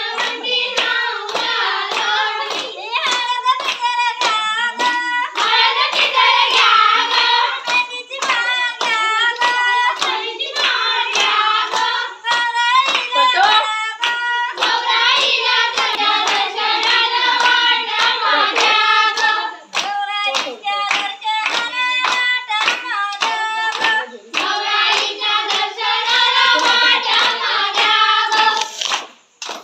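A group of women singing a Konkani folk dance song together, with a steady rhythm of hand claps under the singing. The singing pauses briefly between verses a few times.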